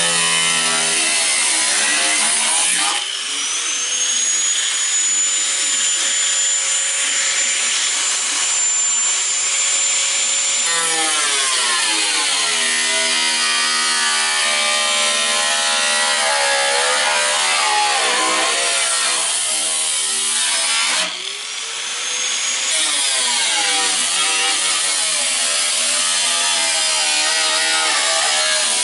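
Electric power tool cutting the steel patch panel. Its motor spins up with a rising whine about three seconds in and holds steady, then its pitch sags and wavers as it is loaded in the metal. It stops briefly and spins up again a little past the twenty-second mark.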